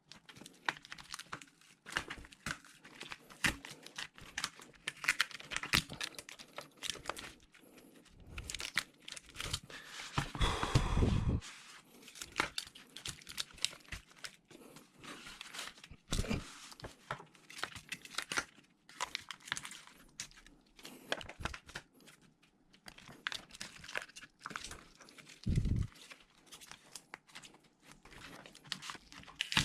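Thin plastic crinkling and tearing under the hands, with scattered small clicks and taps of laptop parts being handled. A louder handling noise comes about ten seconds in, and a short dull thud near the end.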